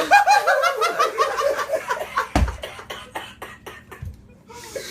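Hysterical laughter: a run of pitched ha-ha pulses that turns into breathless, airy gasping laughs, with a low thump about halfway through.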